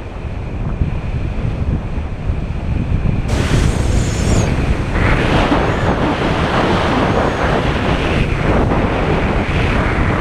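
Wind buffeting an action camera's microphone in tandem paraglider flight: a steady rush that grows louder and hissier about three seconds in.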